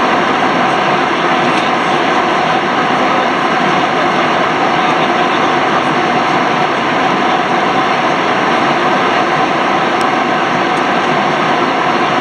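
Steady cabin noise of a Boeing 737-800 in flight, heard inside the cabin: the even rush of airflow and the drone of its CFM56 turbofan engines, with a faint steady whine.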